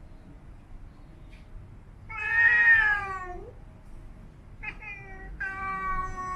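Siamese cat yowling in long, sung growls: a loud drawn-out call about two seconds in that sinks slightly in pitch, then a short call and a long, steady one near the end.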